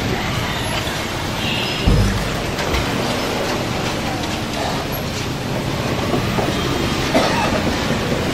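Steady rumbling background noise, with a low thump about two seconds in.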